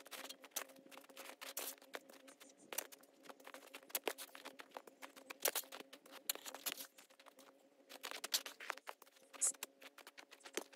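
Boots crunching on snow as a person walks and steps about, in many irregular crisp steps, over a faint steady hum.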